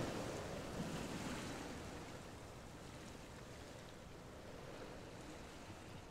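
A steady rushing noise, like wind or surf, that fades gradually.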